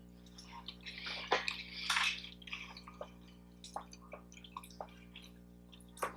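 Close-miked wet chewing and lip-smacking of someone eating: a run of short smacks and clicks, with a longer moist smacking stretch about a second in.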